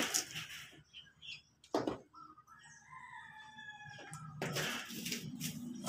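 A rooster crowing once, a single long call of about two seconds, a little past the middle. It is preceded by a fading clatter at the start and a sharp knock, and followed by a steady low rumble with scraping noise over the last second and a half.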